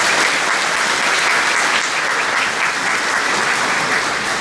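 Large seated audience applauding steadily, a dense even clapping.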